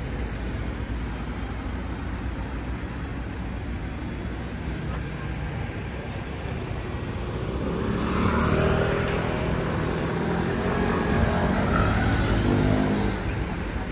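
A vehicle engine passes close by over a steady background rumble of street noise. It grows louder from about halfway through, its pitch shifting as it goes by, and falls away just before the end.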